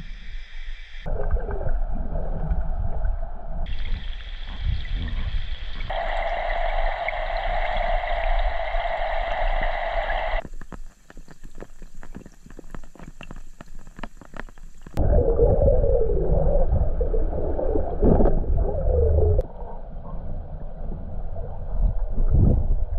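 Muffled underwater water noise and gurgling picked up by cameras submerged while spearfishing. The sound changes abruptly several times, and a stretch of rapid crackling clicks runs through the middle.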